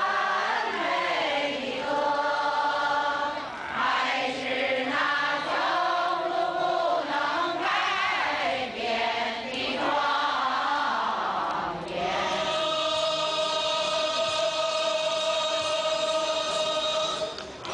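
Background music: a choir singing a slow chant that, about twelve seconds in, settles into one long held chord.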